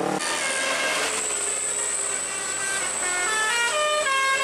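A tour bus's Basuri telolet horn, a multi-note electric air horn, playing a melody of short notes that step up and down in pitch.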